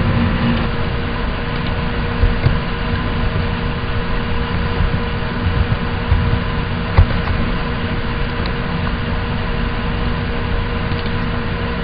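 Steady electrical hum and hiss of background machine noise, with a few faint clicks.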